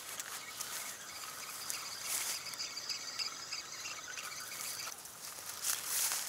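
Spinning reel being cranked, a steady whir that stops about five seconds in, as slack line is wound back after the snagged rig broke off. A couple of rustles of clothing or steps on dry grass.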